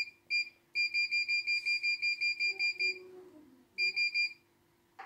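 CNY E900 computerised embroidery machine's control panel beeping at each key step: quick runs of short, high beeps, about six a second, the longest lasting about two seconds, as a button is held to scroll through the stored design list.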